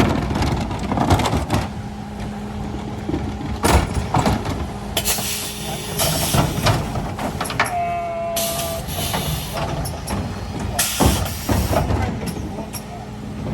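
Mercedes Econic refuse truck running, with sharp clanks and hissing, and a short steady tone about halfway through.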